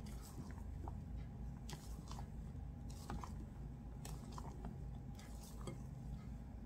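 Silicone spatula folding whipped egg whites into egg-yolk sponge-cake batter in a glass bowl: soft, wet squelching and scraping strokes against the glass, about one a second. A faint steady hum runs underneath.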